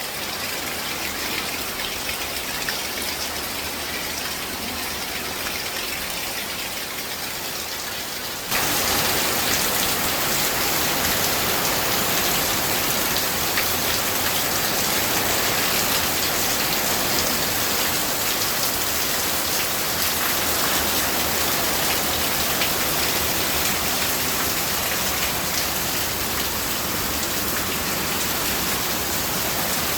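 Rain falling steadily; about eight seconds in it suddenly gets louder and fuller, then holds steady.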